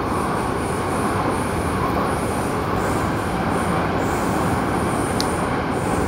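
MTR Tung Chung line A-train electric multiple unit running, a steady rumble of wheels on rail and running gear heard from on board, with a brief thin squeal about five seconds in.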